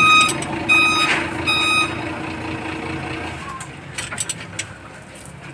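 An electronic beeper sounds a steady high tone in short pulses about every 0.7 seconds, three times, and stops about two seconds in, over a low steady hum. A few light clicks follow near the end.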